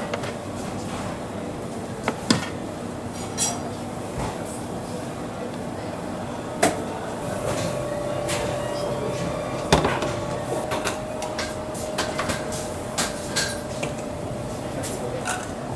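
Restaurant kitchen clatter: dishes and utensils clinking and knocking at irregular intervals over a steady background noise. A faint steady tone sounds for several seconds in the middle.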